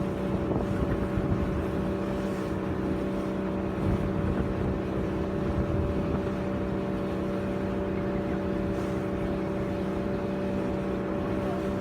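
Tugboat's diesel engine running steadily, heard on board: a constant drone with several steady tones over a low rumble.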